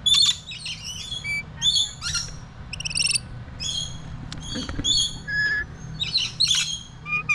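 A group of small parrots chirping and screeching: many short, shrill calls in quick succession, some overlapping.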